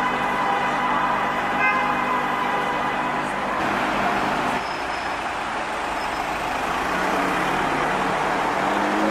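City street traffic with a car engine idling steadily; the sound changes about four and a half seconds in, and an engine note starts to rise near the end.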